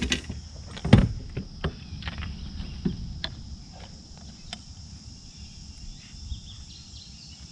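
A steady high insect drone, with a series of sharp knocks and clicks over it, the loudest about a second in, growing sparse after the first few seconds.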